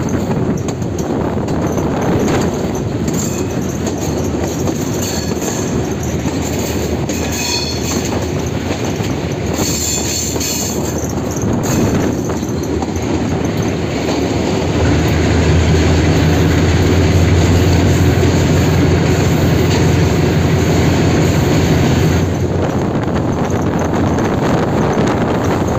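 Diesel locomotive running light on a sharply curving line fitted with check rails: steady wheel-on-rail rolling noise, with high wheel squeal in several short stretches in the first half. About midway the engine's deep drone grows louder for some seven seconds, then drops back.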